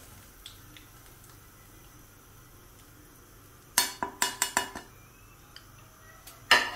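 A slotted metal spoon clinks against a wok and plate in a quick run of about six ringing taps about four seconds in, and there is a louder clatter near the end. Hot oil sizzles faintly underneath.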